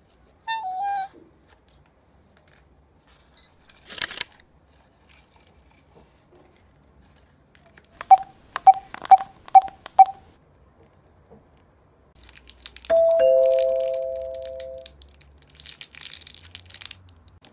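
Plastic toy packaging crinkling and tearing as it is unwrapped, with electronic beeps over it: a short squeaky falling tone, five quick evenly spaced beeps, and a two-note tone held for about two seconds.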